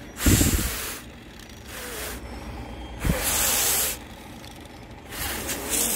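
A man blowing hard into the little fan of a wind-powered LED car light, puffs of air that make it light up. Three strong, hissing blows of about a second each, with a weaker one between the first two.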